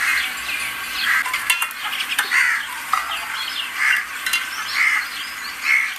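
A cooking utensil scraping round a pot as food is stirred, in short strokes about once a second, with a few light clicks of metal.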